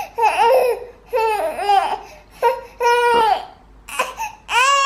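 Infant screaming and fussing in a string of short, high-pitched shrieks and wails, then a longer held cry near the end. It is an upset baby, cross at his teething toy.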